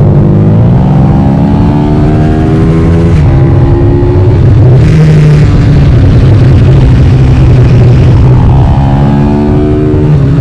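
Pit bike's small four-stroke single-cylinder engine at racing speed, heard close up from the bike itself: the pitch climbs hard for about three seconds, breaks briefly at a gear change, holds high, then falls near the end as the throttle is closed for a bend.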